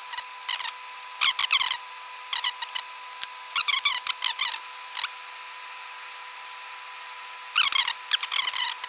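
Scissors snipping through the French lace base of a hairpiece, in short runs of quick, crisp cuts with pauses between; the busiest run comes near the end. A faint steady hum runs underneath.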